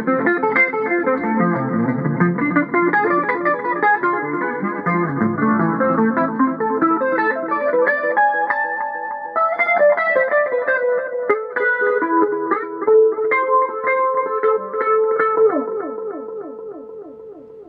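Electric guitar played through a clean tone, a steady run of plucked single notes and chord shapes. About fifteen seconds in the playing stops and the last notes ring and fade out.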